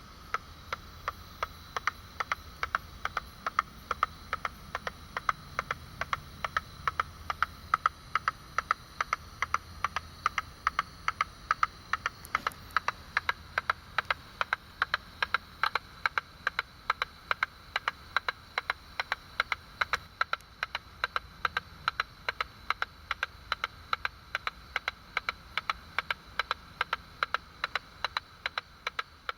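Ultrasonic song of a Leptoteratura albicornis katydid, around 60 kHz, made audible through a bat detector. It is heard as a steady series of sharp clicks, about three a second, over a low hiss.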